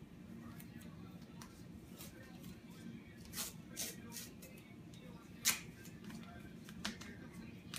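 White athletic tape being pulled off the roll and torn in a handful of short, sharp rips, the loudest a little past halfway, over a low steady hum.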